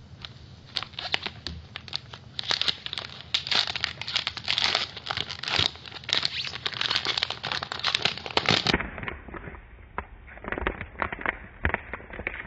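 A foil trading-card pack wrapper being torn open and crinkled by hands in latex gloves: a dense, irregular crackling, sparser over the last few seconds.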